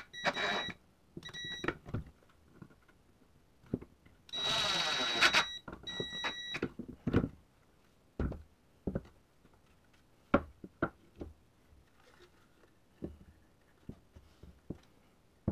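Cordless driver whirring in four short bursts, driving half-inch screws through small metal angle brackets into a wooden frame; the longest burst, about four seconds in, runs over a second. Then scattered knocks and clicks as the tool is set down and the wooden frame is handled.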